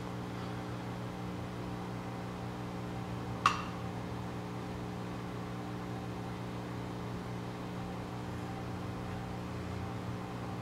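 Steady machine hum holding several fixed pitches, like a fan or appliance running, with a single light click about three and a half seconds in.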